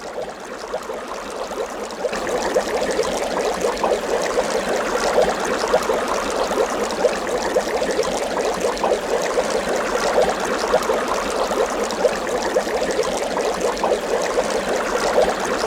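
Running water trickling and bubbling steadily, a little louder from about two seconds in.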